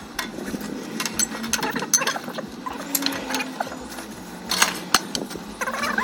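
Ratchet wrench clicking in uneven strokes, with metallic knocks, as it turns a threaded-rod press to draw a new bushing into a rear trailing arm.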